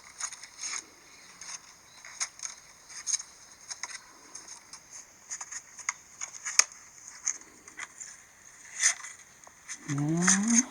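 iPhone speaker giving off irregular crackling, scraping clicks, a glitching noise from a phone malfunction of unknown cause. A brief rising pitched sound comes near the end.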